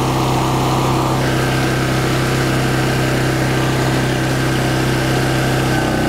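Westinghouse WGen3600DF open-frame generator's single-cylinder engine running steadily on gasoline. Its note shifts slightly about a second in and again near the end.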